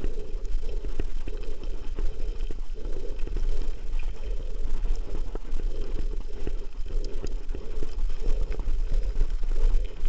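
Mountain bike rolling down a loose gravel quarry track: tyres crunching over the stones with a steady stream of small clicks and rattles from the bike over the rough surface, and a low rumble of wind on the microphone.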